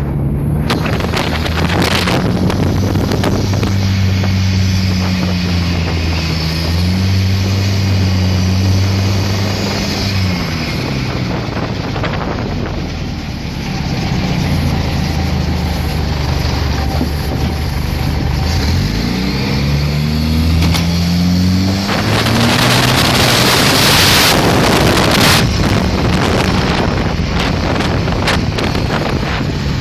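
Motorboat's turbocharged Volvo B21 four-cylinder engine running under way, its note sagging around ten seconds in and then climbing steadily as the throttle is opened about eighteen seconds in. A loud rush of wind on the microphone joins it around twenty-two seconds in for a few seconds.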